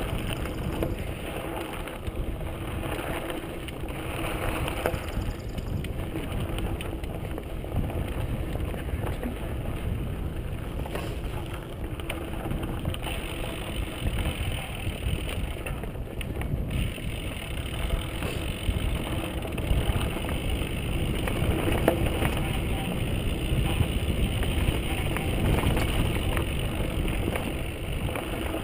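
Mountain bike rolling fast down dry dirt singletrack: steady wind rumble on the microphone and tyre noise over the dirt, with frequent small clicks and rattles from the bike over bumps.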